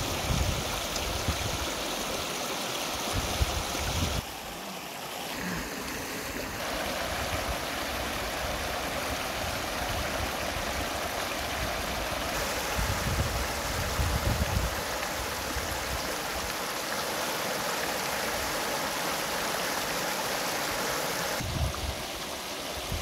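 Shallow river rushing over rocks and small rapids, a steady noise of flowing water, with a few short low bumps.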